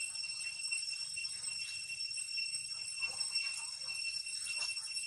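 Steady high-pitched insect drone that holds one even ringing pitch throughout, with faint brief scuffs or squeaks now and then.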